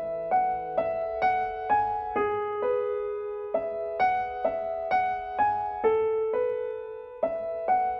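Background music: a piano playing a melody of single notes, about two a second.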